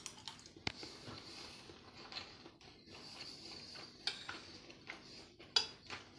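A metal spoon clinking lightly against a plate: a few short, sharp clicks spread through, the clearest about two-thirds of a second in and another pair near the end.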